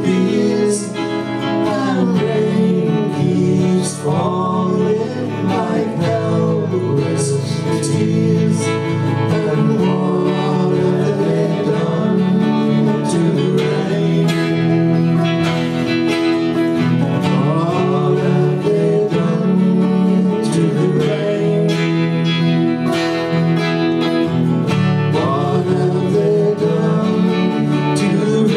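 Two acoustic guitars strummed and picked together in a live duo performance of a folk-pop song, with singing over them.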